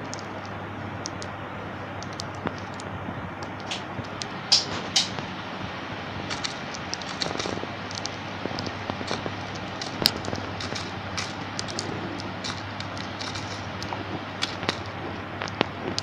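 Lutino budgerigar feeding at a plastic seed dish: scattered small sharp clicks and cracks of beak on seed and dish at irregular intervals, over a steady hiss and low hum.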